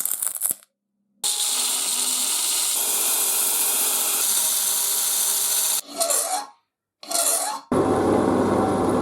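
Abrasive restoration work on the metal of an antique ox-tongue iron: a steady scraping, sanding noise in short clips that cut off abruptly twice. A deeper, fuller tool noise with a low hum starts about three-quarters of the way in.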